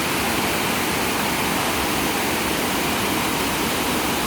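A fast, swift-flowing river rushing steadily, running high.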